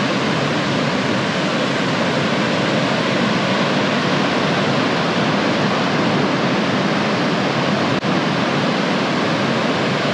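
Steady rush of water, an even noise without surges or breaks.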